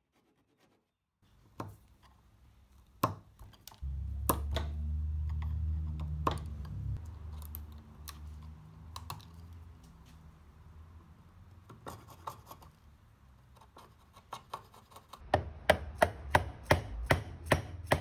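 Hand woodworking on a hardwood tenon: scattered sharp taps and knocks of tool and wood, with a low hum for a few seconds early on. Near the end comes a steady run of sharp knocks, about three a second.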